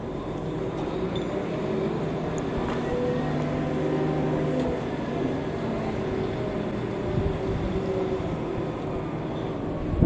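An engine running steadily with a low hum that swells a little around the middle and then eases.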